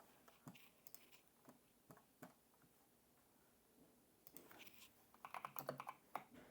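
Faint typing on a keyboard while entering a search: a few scattered key clicks, a short pause, then a quick run of taps near the end.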